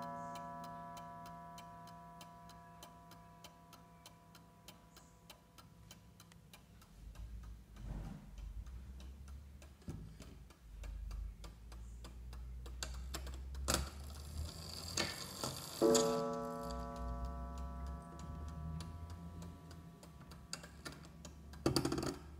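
Pendulum mantel clock ticking steadily. About two-thirds of the way through its coiled wire gong is struck once and rings, slowly dying away, and the ring of an earlier blow is fading at the start. Low rubbing and knocks from the hands being moved by hand come in the middle and near the end.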